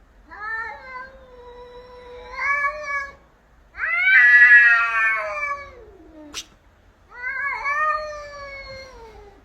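Domestic cat yowling in a fight standoff: three long, wavering yowls, the middle one loudest and falling away at its end. A short sharp click about six seconds in.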